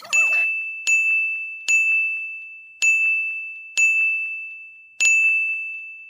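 A high, clear metallic bell-like ding struck six times at uneven intervals, each ring fading away slowly.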